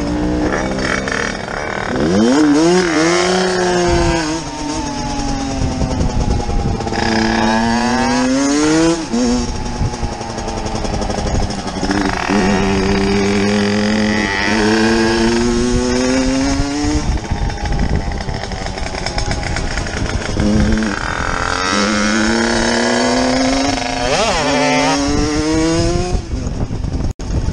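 Yamaha dirt bike's engine revving up through the gears. Its pitch climbs, then drops at each shift, several times over, with wind noise throughout.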